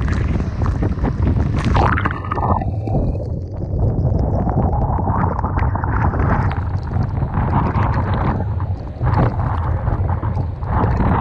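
Typhoon-force wind buffeting the microphone with a constant heavy rumble, over rough sea with waves crashing and spray hitting. About two seconds in, the sound turns briefly muffled and gurgly, then the surf noise builds back up.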